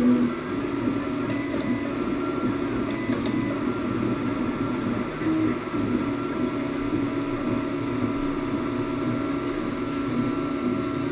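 3D printer running: stepper motors whining in steady tones that shift pitch in steps as the axes move, over a constant fan hiss.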